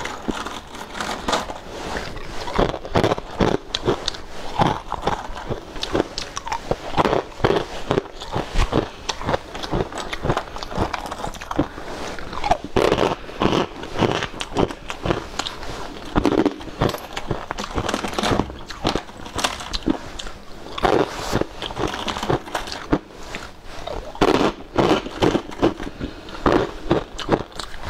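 Brittle, flaky food crunching and crackling, a dense run of crisp snaps in quick succession with louder clusters every second or so.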